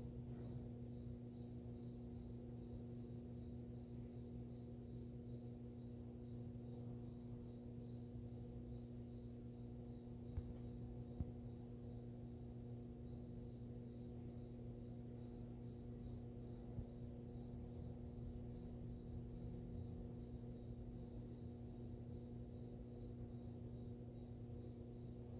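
Aquarium pump equipment running with a steady electrical hum made of several fixed tones. Three short clicks come through, two close together near the middle and one a few seconds later.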